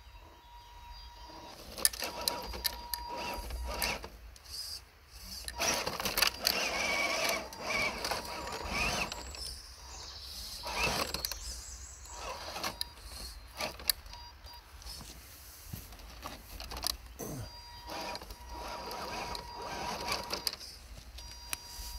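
RC crawler's small electric motor whining on and off, with irregular clicks and scrapes as it drives.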